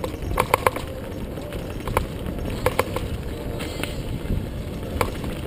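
Mountain bike rolling fast down a dirt forest trail: a steady rumble of tyres and wind on the microphone. Over it come sharp rattling clacks from the bike jolting over bumps, a quick cluster a little under a second in and single ones scattered after.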